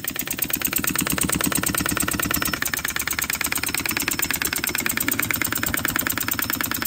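Scratch-built single-cylinder rotary-valve model steam engine running fast, a rapid, even stream of exhaust beats and mechanical clatter. It is running with its original solid cast-iron piston, which is far too heavy and makes the engine jerk badly on the bench.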